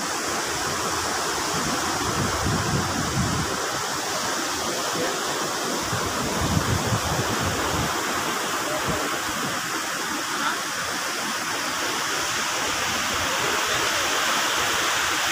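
Steady rushing noise of sea wind and surf on a beach. Low buffeting of wind on the phone microphone comes twice in the first half.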